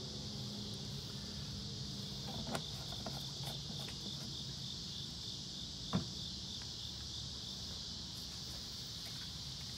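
Insects chirring steadily in a high band, with one sharp click about six seconds in.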